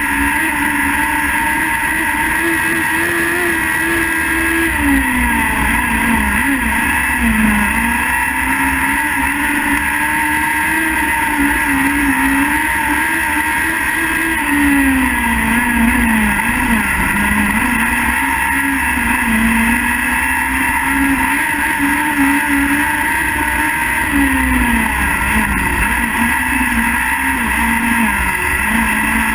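Speedway sidecar engine under race load, heard from on board the outfit: a steady note whose revs drop and climb back again three times, over constant wind and engine noise.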